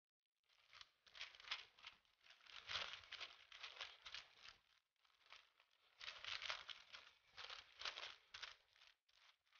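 Rolling pin pressing tart dough between two sheets of baking parchment: faint paper crinkling and rustling in bursts with each back-and-forth stroke, easing off briefly about five seconds in and again near the end.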